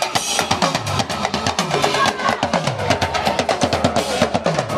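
Live percussion music: fast, dense drumming on several drums, with repeated deep notes that slide down in pitch.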